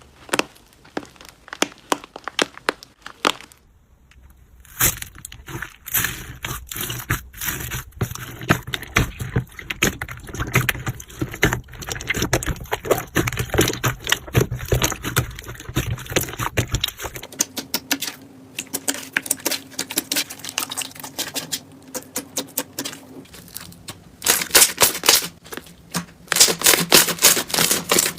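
Slime being squeezed and pressed, making dense runs of crackling, popping clicks. The sound changes abruptly twice, about 4 and 17 seconds in, as a different batch of slime takes over.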